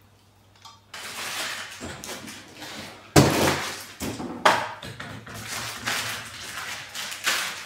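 Packaging and line trimmer parts being handled: a continuous rustle, with sharp knocks about three and four and a half seconds in.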